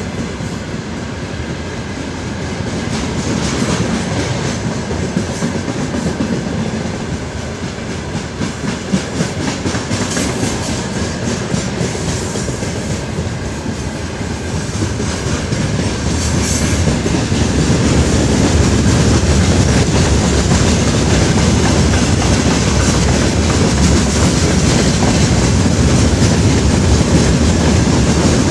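Freight train wagons rolling past at speed, a steady rumble with the wheels clattering over the rail joints. It grows louder about two-thirds of the way through, as open gondola wagons follow the covered hopper cars.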